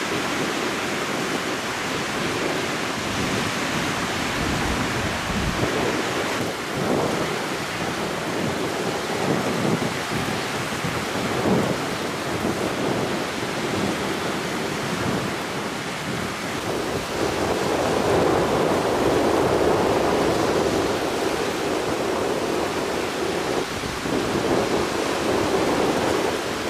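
Surf breaking and washing on a sandy beach, with wind buffeting the microphone. The wash swells louder about two-thirds of the way through.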